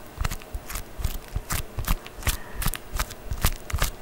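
Sticky anti-stress putty being squeezed and pulled between the fingers, giving quick irregular sticky crackles and clicks, several a second.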